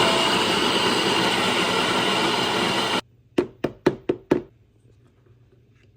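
Electric coffee grinder running steadily for about three seconds, then cutting off suddenly. About five sharp knocks follow in quick succession.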